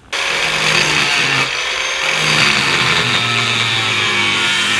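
Angle grinder switched on and grinding into the rusty sheet steel of a car's rear wheel arch, running steadily under load with its pitch wavering slightly. It is taking the arch back to bare metal to show how far the rust goes.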